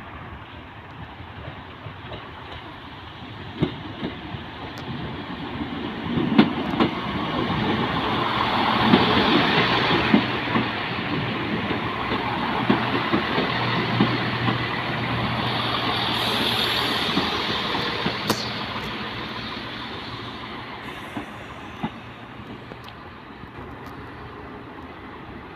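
Class 170 Turbostar diesel multiple unit arriving and passing close by at low speed: a steady engine hum under wheels clicking over rail joints. The sound builds to its loudest about nine seconds in, holds, then fades away as the train draws off down the platform.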